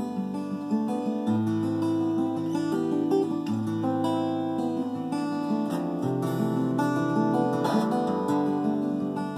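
Acoustic guitar fingerpicked in CGDGAC open tuning: low bass notes that change about every two seconds under ringing, overlapping melody notes.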